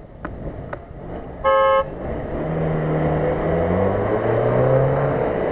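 A short car-horn toot about a second and a half in, then an off-road 4x4's engine revving up, its pitch rising and then held at high revs, typical of a vehicle giving it a lot of gas in soft ground.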